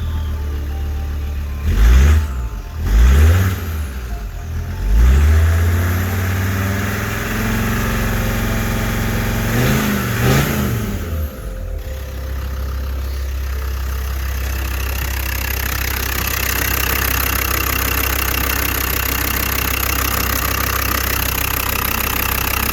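Land Rover Td5 five-cylinder turbodiesel engine being blipped: short revs at about two, three and five seconds in and a longer one around ten seconds, each rising and falling back, then settling to a steady idle.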